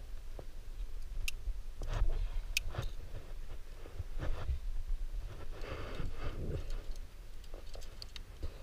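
Scattered metallic clicks and clinks of carabiners and quicklink on a chained bolt anchor, with rope rustling in between, as the climber rethreads the rope at the top anchor to lower off. A low rumble of handling runs underneath.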